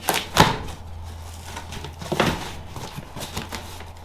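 Cardboard shipping box being worked open by hand: a few sharp knocks and scrapes, the loudest about half a second in and another about two seconds in, over a steady low hum.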